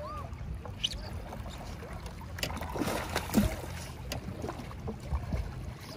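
Water splashing beside a small boat as a hooked fish thrashes at the surface while it is being landed, with a few scattered knocks against the boat.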